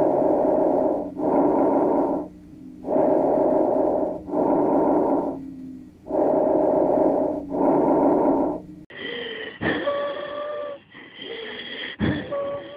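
Lung sounds through a stethoscope: three breaths of noisy airflow, each an in-breath and an out-breath of about equal length. About nine seconds in, a second recording takes over with wheezes: thin, steady musical whistles over the breathing.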